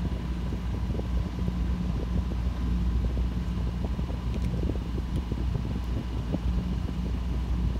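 Small sailboat's engine running steadily while the boat motors along, with wind rushing over the microphone.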